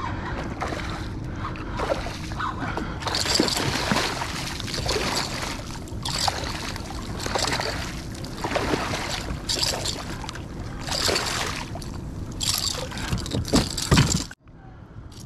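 Small striped bass (schoolie) hooked beside a kayak, thrashing and splashing at the water's surface in repeated bursts as it is reeled in, the loudest splashes just before it is lifted out, over a steady low rumble.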